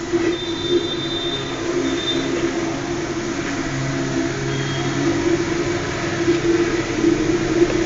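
A steady mechanical hum with a strong low drone. Brief thin high tones sound over it a few times.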